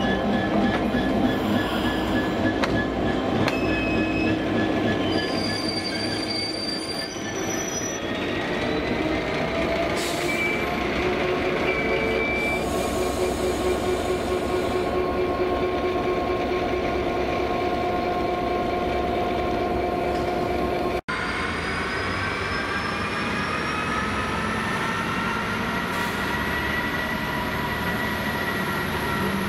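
Freight wagon wheels squealing against the rails, with several steady shrill tones over a rumble, as a rake of empty flat wagons is shunted slowly by a Class 66 diesel. After a sudden cut, a Class 66 diesel locomotive rumbles past with a whine that rises in pitch and then holds steady.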